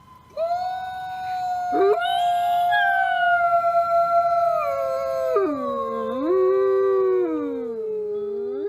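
Wolves howling, at least two voices overlapping in long, held notes that slide down and rise again in the second half.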